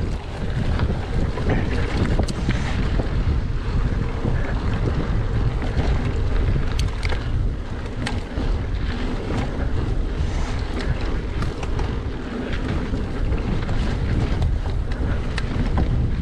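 Mountain bike riding down a dirt trail: wind buffets the camera's microphone in a steady deep rumble, over tyre noise on the dirt and scattered clicks and rattles from the bike.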